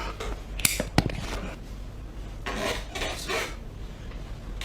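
Hands rubbing and sliding over skin and clothing during a massage, with two sharp clicks about a second in.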